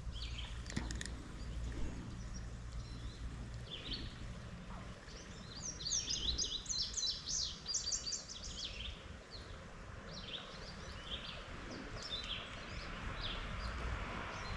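A songbird singing: a fast run of short, high notes about halfway through, with scattered chirps before and after, over a faint steady low rumble.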